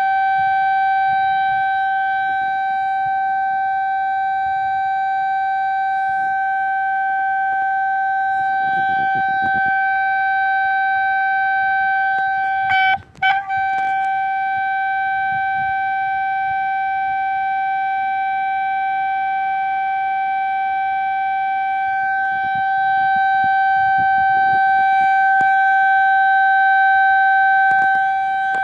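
Malfunctioning emergency HELP call box sounding a continuous, steady, single-pitched alarm tone. The tone cuts out for a split second about halfway through, then resumes unchanged.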